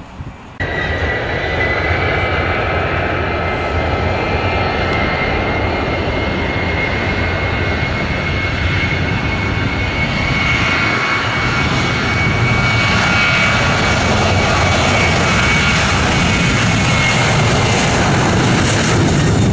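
Airliner's engines running loud and close: a steady rushing noise with a high whine, starting abruptly about half a second in.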